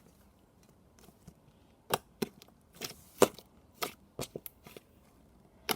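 Slime being squished and poked by hand, giving scattered sharp clicks and pops, the loudest a little past three seconds in.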